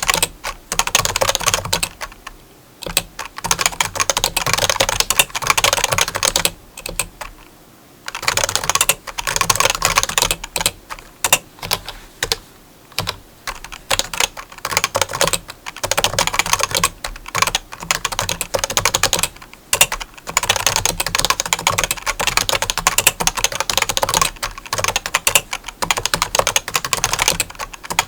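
Rapid typing on a keyboard: dense runs of key clicks in bursts, broken by short pauses every few seconds.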